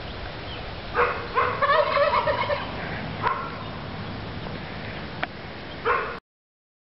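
Domestic turkey gobbling in several bouts. The longest is a rapid, warbling gobble lasting about a second, starting about a second and a half in.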